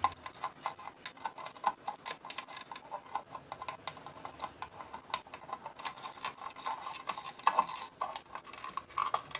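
Quiet, irregular small clicks and ticks, several a second, as a soldering iron tip and fingers work at a wire on a metal fuse-holder terminal, trying to melt old solder that is reluctant to melt.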